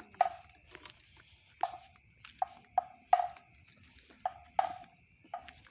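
About a dozen short, hollow-sounding knocks at irregular intervals, each with a brief ringing tone, over a faint steady high-pitched tone.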